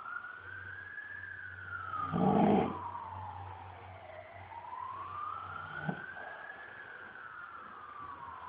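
A siren wails slowly up and down, one long rise and fall every five or six seconds. About two seconds in, a man gives one loud, rough snore.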